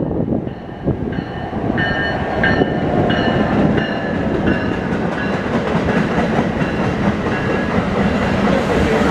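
NJ Transit commuter train of multilevel coaches, hauled by an ALP-46A electric locomotive, rolling past as it pulls into the station. The wheels rumble and clack steadily over the rails. Through it a ringing tone repeats at a regular beat, a bit under twice a second.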